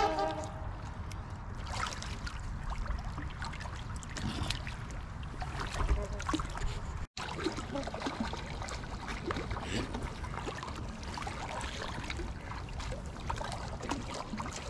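Water lapping and trickling on the river, over a steady low rumble, with a brief dropout in the sound about seven seconds in.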